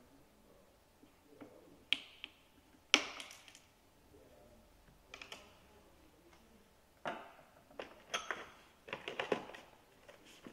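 Scattered clicks and light clinks of a small hand tool and parts as a small cover is taken off the head of an Infaco F3015 electric pruning shear and set down. The loudest click comes about three seconds in, with a busier run of clicks near the end.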